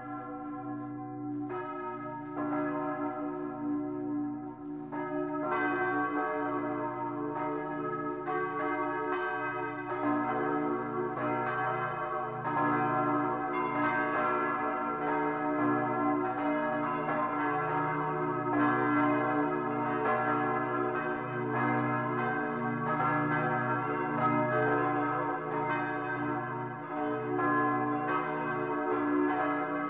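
Church bells ringing: several bells struck again and again, their tones overlapping and ringing on. The peal gets louder after about five seconds.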